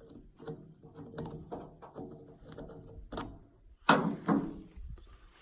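A series of light knocks and clatter from hands handling hard objects, with one sharp, loud knock about four seconds in and a second one just after it.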